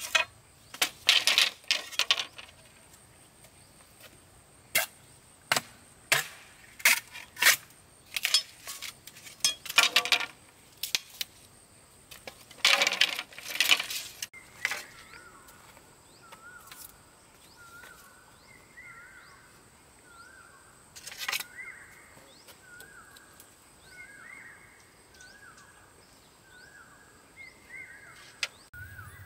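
Sharp knocks and clinks of hard objects struck or set down, irregular and loud for about the first fifteen seconds. After that a bird calls over and over, short high notes with a quick rise and fall, about once a second.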